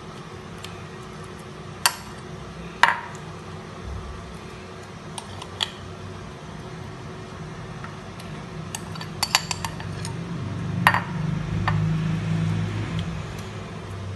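A metal spoon clinking and scraping against a glass bowl and plate as seasoning is spooned onto raw beef steaks. The clinks are sharp and scattered, with a quick cluster of several about nine seconds in, over a low steady hum.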